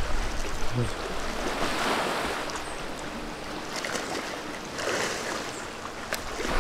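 Sea water washing in, the hiss swelling twice a few seconds apart like small waves breaking, with the faint steady hum of a distant outboard motor underneath.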